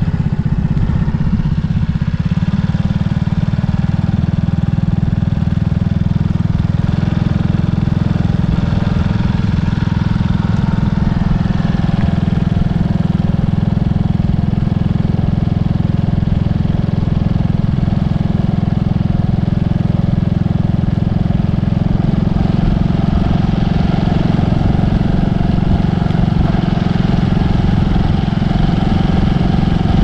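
Steady, unchanging low drone of an engine running at idle.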